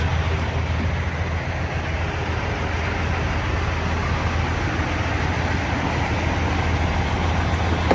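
Semi truck's diesel engine drone and road noise heard steadily from inside the cab, with a strong low hum.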